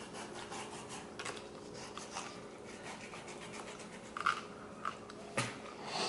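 Knife slicing and scraping fat off a raw beef brisket in an aluminium foil pan: soft, scattered scraping with a few sharper clicks, the loudest about five and a half seconds in.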